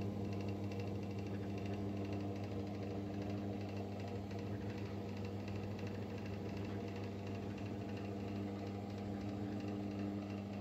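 Electric motor running steadily at constant speed, turning a homemade lathe spindle: an even, unchanging hum.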